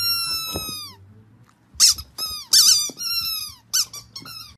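Pink rubber squeaky dog toy squeaking as a boxer dog chews and squeezes it in its jaws. A long squeak falls in pitch over about a second, and after a short pause comes a quick run of shorter squeaks.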